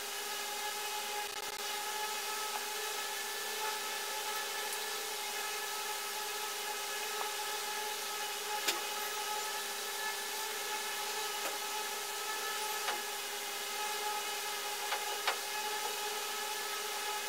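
A steady hum of several fixed tones over a hiss, with a few faint clicks.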